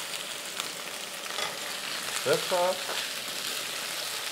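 Chicken pieces frying in oil in a wok, a steady sizzle as the meat browns. A short voice sound, like a brief hum, comes about two and a half seconds in.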